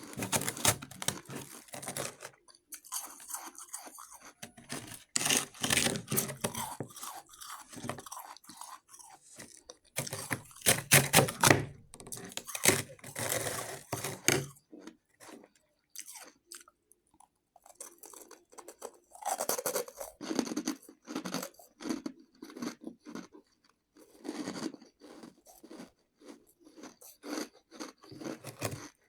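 Shaved ice being crunched and chewed in the mouth, in bouts of a few seconds with short pauses, the bouts denser and louder in the first half and sparser after.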